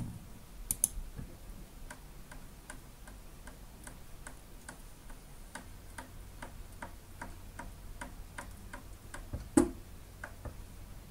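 Homemade PCB machine's stepper drives searching for their limit switches: even ticking at about three a second, a steady low hum joining about halfway through, and one sharp, louder click near the end.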